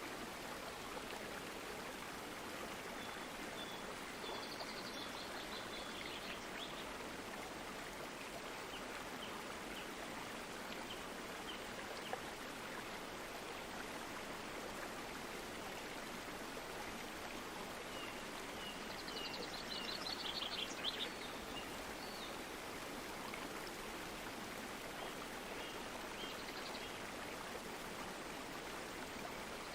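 Stream water flowing steadily with an even rushing sound. Birds chirp in short quick series a few times over it, most clearly about two-thirds of the way through.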